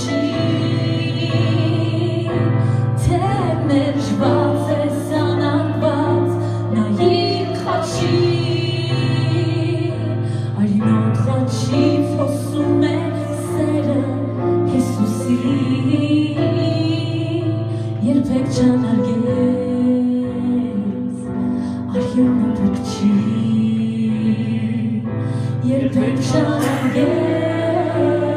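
A woman singing a Christian worship song into a microphone, with long held notes, accompanied by sustained keyboard chords.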